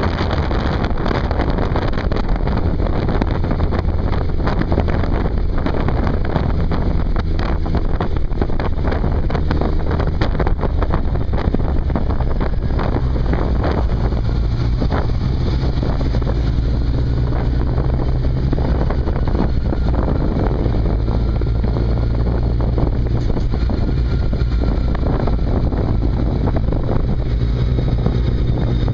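Motorcycle engine running under way, heard through heavy wind buffeting on a bike-mounted camera's microphone; the engine note shifts about halfway through.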